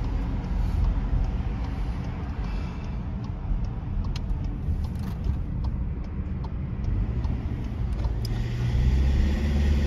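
Cabin road noise of a moving car: a steady low rumble of tyres and engine, with a few faint clicks, growing louder near the end.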